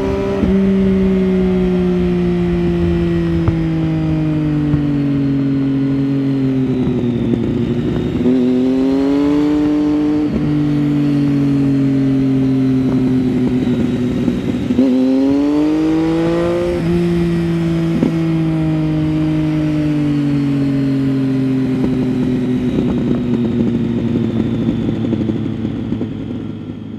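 2009 Triumph Street Triple 675's inline three-cylinder engine through an Arrow 3-2 exhaust with its dB-killer fitted, heard from the rider's seat on the move. The revs climb twice, about 8 and 15 seconds in, and otherwise fall off slowly through the bends.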